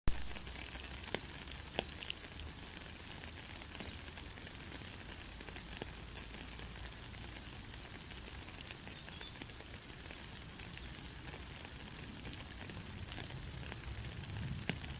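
Steady white-noise hiss for lulling a baby to sleep, with scattered faint crackles and ticks, much like light rain or sizzling. There is a sharp click right at the start.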